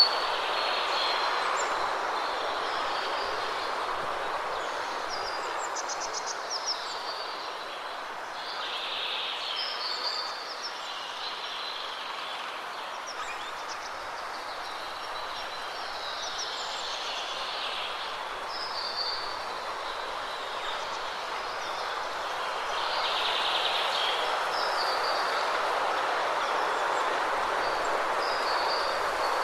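Steady rushing of a waterfall, with small birds chirping in short calls over it every second or two. The rush swells a little louder about three quarters of the way through.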